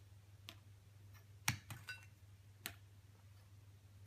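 A few faint, sharp clicks and taps, about four in all and loudest near the middle, over a low steady hum.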